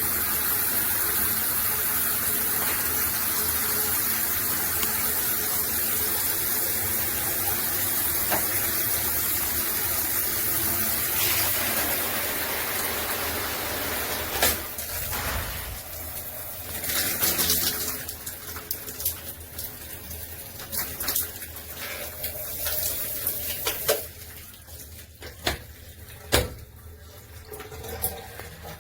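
Stainless steel square rainfall shower head pouring water in a steady, even rush. About halfway through the rush drops off, leaving quieter uneven water sounds and a few sharp clicks.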